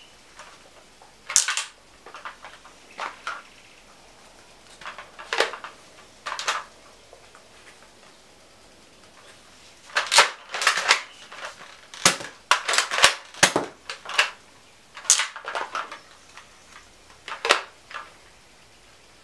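Plastic spring-powered toy foam-dart blaster (X-Shot Vigilante double-barrel) being worked and fired: sharp plastic clacks and pops, single strikes spread apart and a quick run of them about two-thirds of the way through.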